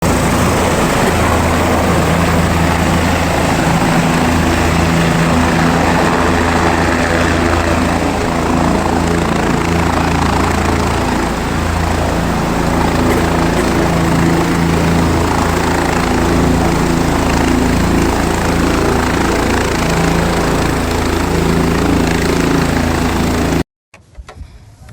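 Helicopter running close by: a loud, steady rotor and engine noise with a low, even hum underneath. It stops abruptly near the end.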